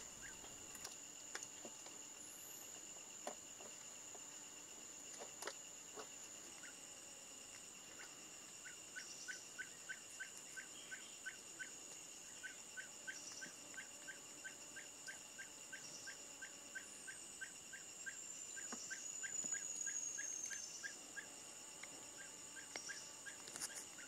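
Faint forest insect drone, a steady high buzz. From about a third of the way in comes a run of short, evenly spaced pips, about two a second. Past the middle, a thin high whistle slides down in pitch.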